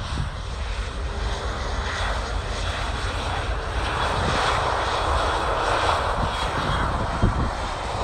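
Airliner engines passing, a broad noise that grows louder from about two seconds in and is strongest in the second half.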